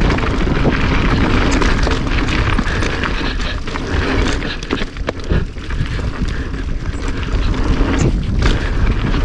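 Wind rumbling on the camera microphone while a mountain bike rolls fast over dirt and gravel, its tyres crunching and the bike clattering over bumps and rocks.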